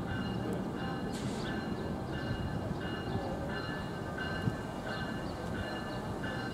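A train running by with a steady rumble, while a bell rings steadily about twice a second.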